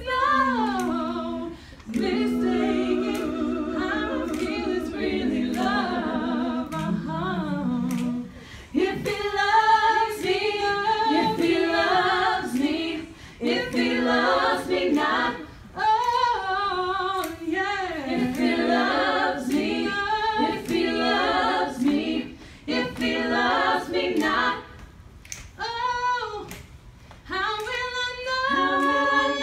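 Three women singing a pop song in close vocal harmony, opening on held chords and then moving into a livelier melody over backing parts, with sharp taps keeping a steady beat.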